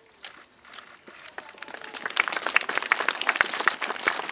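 Crowd applauding, starting thin and swelling into a dense patter of clapping about a second and a half in.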